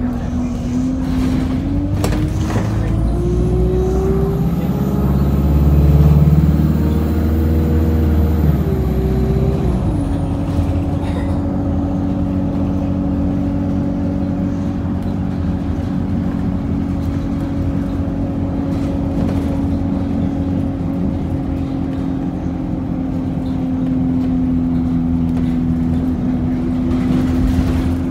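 A bus's engine and road noise heard from inside the passenger cabin. The engine's pitch climbs steadily over the first several seconds as the bus accelerates, drops sharply about ten seconds in, and then runs at a steady cruise under a continuous rumble.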